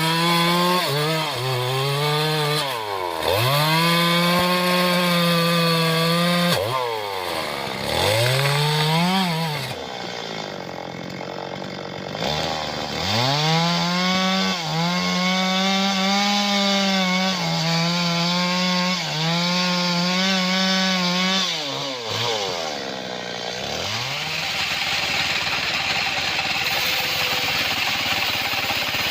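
Stihl two-stroke chainsaw cutting acacia wood. The engine is held at high revs, then falls off and picks up again several times as the throttle is released and squeezed. In the last few seconds the engine note gives way to a steady rushing noise.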